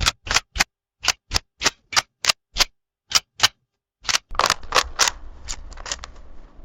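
Camera shutter clicking repeatedly: sharp single clicks about three a second, in short runs separated by brief pauses. In the last run there is a faint hiss between the clicks.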